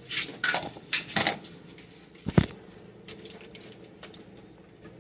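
Handling noise from a handheld phone: rustling and scuffing in the first second or so, then one sharp knock about two and a half seconds in, followed by a few faint ticks.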